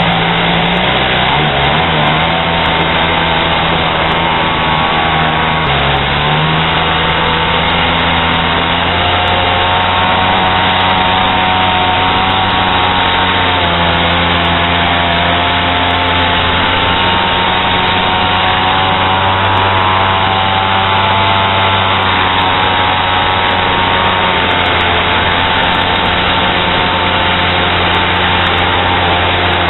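Small 50cc two-stroke pocket bike engine running continuously and loud, close by, driving a canoe; its revs step up and down a few times, around six, nine and fourteen seconds in and again near twenty-four seconds.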